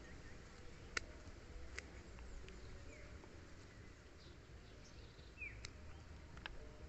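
Pruning snips cutting thin serut twigs: a few sharp snips, the loudest about a second in. Faint bird chirps can be heard in the background.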